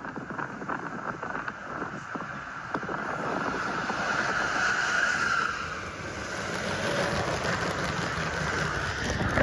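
Toy LEGO train running along plastic LEGO track close to the camera: a rushing, rolling noise with many small clicks from the wheels on the track, growing louder to a peak about halfway through.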